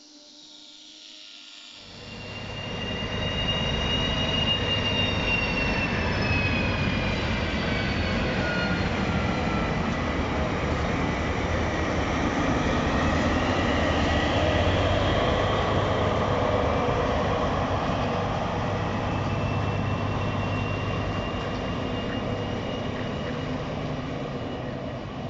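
DB Class 218 diesel-hydraulic locomotives in double traction with a passenger train at a station: steady diesel running with high wheel squeal that falls in pitch over several seconds. It sets in suddenly about two seconds in, after a faint opening.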